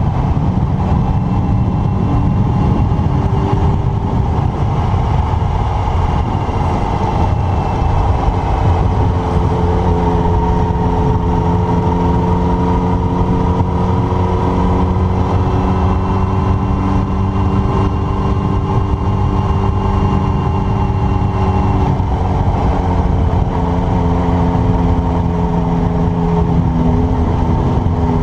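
Yamaha motorcycle engine running at a steady cruising speed, heard from the bike itself, under heavy wind noise. The engine note drifts slightly up and down with no sharp revving.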